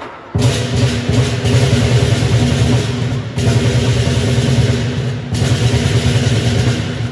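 Chinese lion dance percussion played live: a big drum beating under loud, continuous clashing cymbals, with brief breaks about three and five seconds in.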